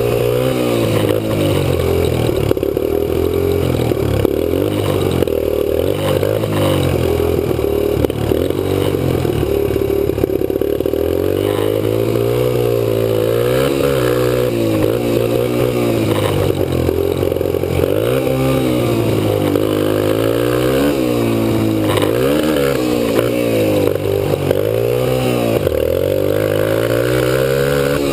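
Kawasaki KLX125 dirt bike's single-cylinder four-stroke engine running under way, its pitch repeatedly climbing and dropping every second or two as the rider opens the throttle, shifts and rolls off.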